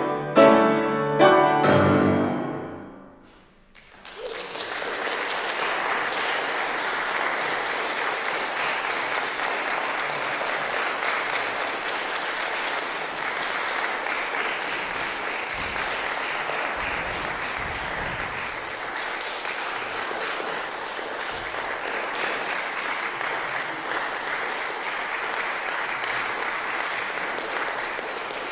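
Grand piano sounding its closing chords, which ring and die away over the first few seconds. About four seconds in, audience applause starts and carries on steadily.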